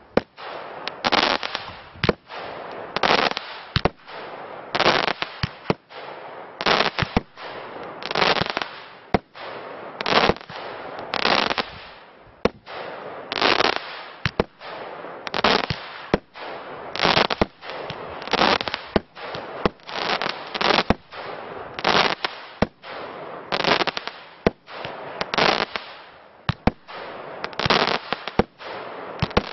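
A 36-shot firework cake firing shot after shot, about one a second, with no pause. Each shot is a sharp bang followed by a short crackling hiss as the glittering stars burst.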